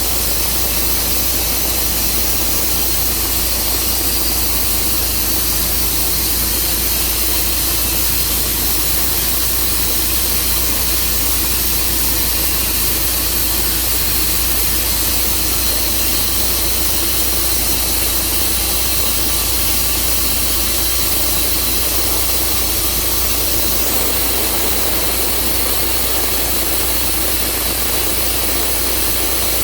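Portable sawmill running steadily, its engine humming under a constant hiss of the saw.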